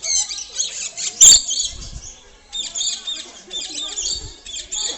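Many small birds chirping and chattering at once, a dense high-pitched twittering as in a crowded aviary. One sharp loud knock about a second in.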